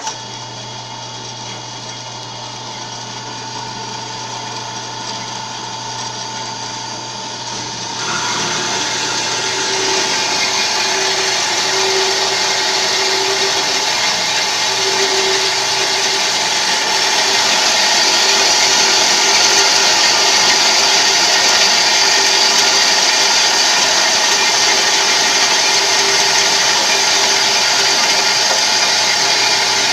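A 7" x 12" metal-cutting band saw switching on and running steadily with a low hum. About eight seconds in it grows louder and hissier, with a wavering tone coming and going, as the blade starts into the metal.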